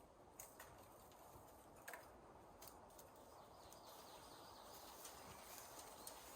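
Near silence: faint outdoor ambience with a few soft clicks and knocks scattered through it.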